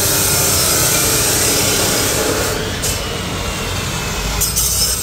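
Steady, loud workshop noise, a dense hiss over a rumble. It eases a little about halfway through, and a low rumble builds near the end.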